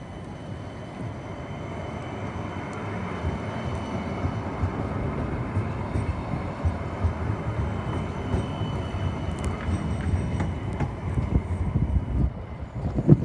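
CAF Urbos 100 tram passing close by on street track: a rumble of wheels on rail that grows louder as it approaches, with a thin steady high whine over it. A short knock comes near the end.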